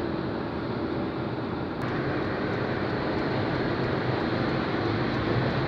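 Car driving at highway speed, heard from inside the cabin: steady tyre and engine noise, turning a little louder and brighter about two seconds in.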